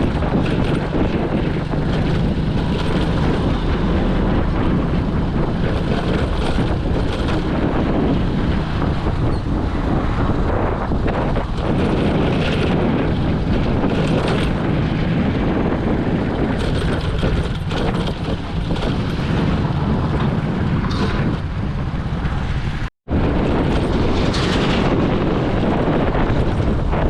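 Wind buffeting the microphone over the steady noise of a vehicle on the move, with a momentary dropout near the end.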